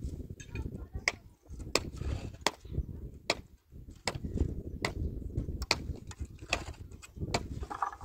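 Hand hammer striking a wooden pallet board in a steady rhythm, about nine sharp blows, one roughly every 0.8 seconds.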